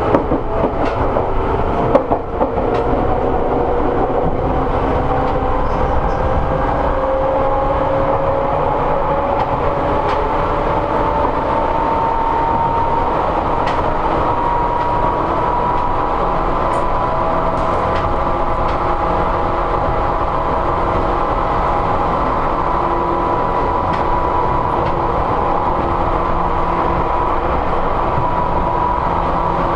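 Seibu 101 series resistance-control electric train running, heard aboard motor car MoHa 247. The motor and gear whine rises steadily in pitch as the train accelerates, then holds level about two-thirds of the way in, over a steady rumble of the wheels on the rails. A few clacks come in the first couple of seconds.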